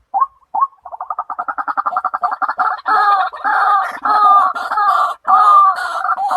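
White-breasted waterhen calling: a few single notes about half a second apart, then a fast stuttering run of repeated notes about a second in that builds into a loud, continuous stream of calls rising and falling in pitch.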